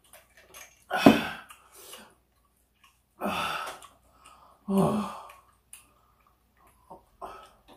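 A person eating gives three loud, breathy vocal sounds, like heavy sighs or exhalations, spaced a second or two apart; the last one falls in pitch. Faint small clicks come in between.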